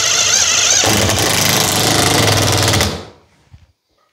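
Power screwdriver driving screws into a plasterboard ceiling sheet: a loud, fast rattling run that stops about three seconds in.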